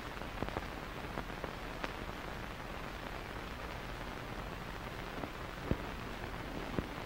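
Steady faint hiss of an old film soundtrack, with a few small scattered clicks and crackles.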